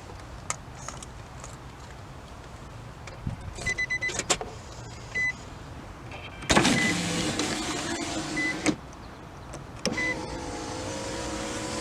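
2006 Nissan Xterra's power window motor running the glass for about two seconds, stopping, then running again, worked by a newly replaced door window switch. A few switch clicks come before the first run.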